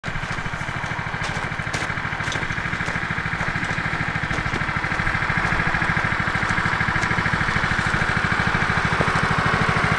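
A small vehicle engine running steadily with an even, fast low beat, growing slowly louder.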